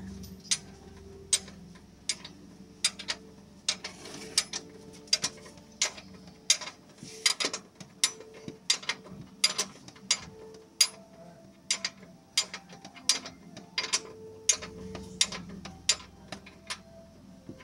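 Hand tools clicking and clinking against metal suspension parts: sharp, separate clicks at uneven spacing, about two a second.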